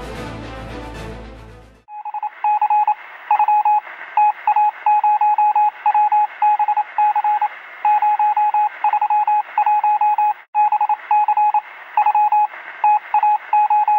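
Intro music cuts off about two seconds in, followed by a long run of Morse-code-style beeps: one steady high tone keyed on and off in short and long pulses with uneven gaps. The beeps sound thin, as if heard over a radio.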